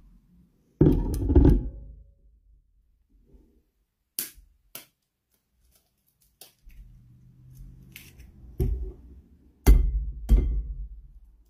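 Knocks and taps against a glass mixing bowl: a loud thunk about a second in as chopped onion is knocked off a plastic plate with a spoon, then eggs rapped on the bowl and cracked open, with two sharp taps around four seconds and heavier knocks near the end.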